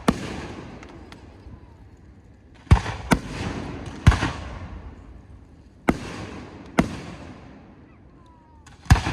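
Fireworks going off: a series of sharp bangs, about seven in nine seconds, some in quick pairs, each followed by a noisy tail that fades over a second or two.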